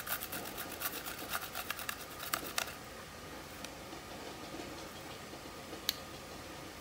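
A garlic clove rubbed quickly across a stainless steel box grater: a fast run of rasping strokes for the first couple of seconds, then quieter, with a couple of single clicks.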